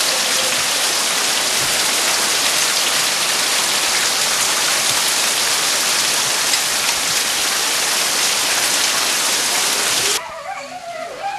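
Heavy hail pelting down in a dense, steady hiss and clatter. It cuts off abruptly about ten seconds in, leaving a much quieter patter.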